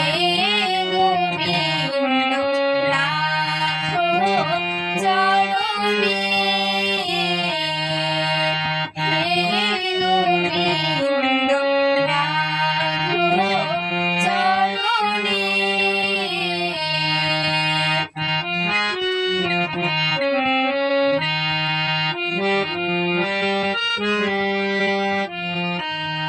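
Music from a Bengali devotional song: a melodic passage led by a free-reed instrument over a steady low accompaniment.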